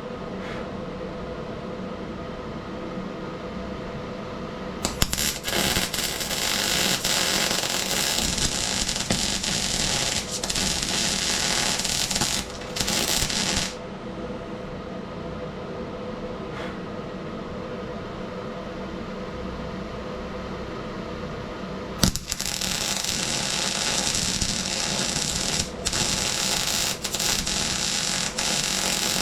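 MIG welder arc crackling in two long runs, the first starting about five seconds in and stopping about nine seconds later, the second starting a few seconds past the twenty-second mark and running on, each with a sharp click as the arc strikes. A steady hum fills the gaps between the runs.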